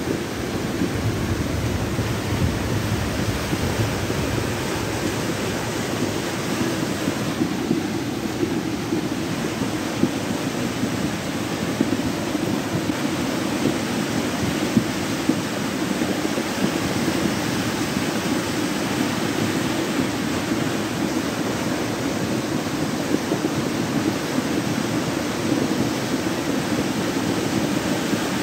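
Muddy floodwater rushing down a swollen arroyo after heavy rain: a steady, loud rush of water.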